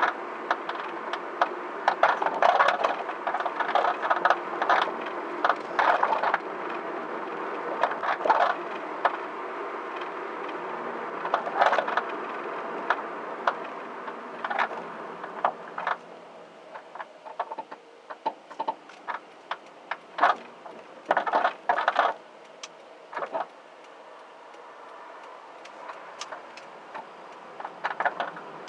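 Coilover suspension knocking and rattling in irregular sharp clicks, sometimes in quick clusters, over steady road noise while driving. It is an abnormal noise that began once the DIY-fitted coilovers were lowered to their lowest setting and did not stop after raising the ride height 1 cm.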